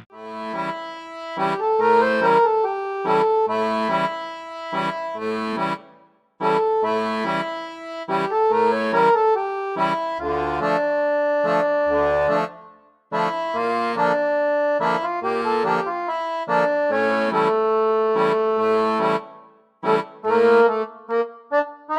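Instrumental background music: a melody of held, reedy notes in phrases with brief pauses between them, changing to short, detached notes near the end.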